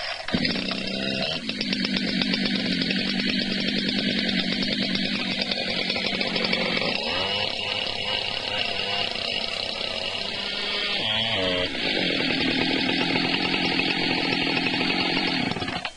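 Two-stroke chainsaw started on the starter cord for the second stage of a cold start, with the choke pushed in after it first fired. It catches within the first second and runs steadily. Its engine speed drops and wavers about seven seconds in, then picks up again about eleven seconds in.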